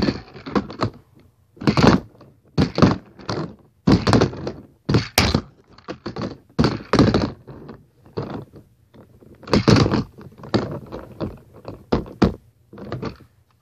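A handboard being popped and landed in tricks: a long, irregular string of sharp thunks and clacks as the board's tail and wheels strike the surface, one or two a second.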